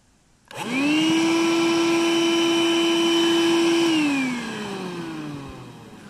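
18-volt cordless vacuum cleaner switched on, its motor spinning up within a moment to a steady whine, running about three seconds, then switched off and winding down with a falling pitch.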